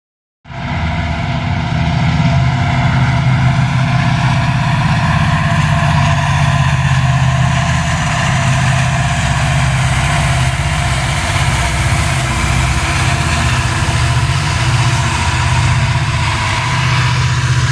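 Diesel locomotives at the head of a freight train running past, a loud steady engine sound with a deep hum.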